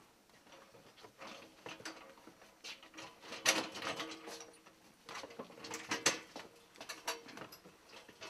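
Irregular knocks and rattles from a metal hand truck and the handling of wooden furniture as movers come in for tables.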